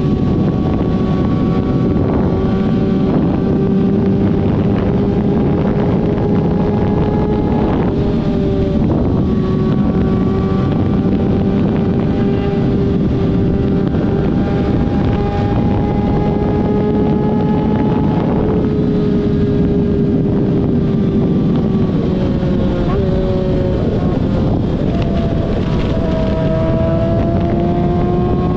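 Vehicle engine running steadily at cruising speed, its pitch holding with small dips and shifts around two thirds of the way through and near the end, with wind rushing over the microphone.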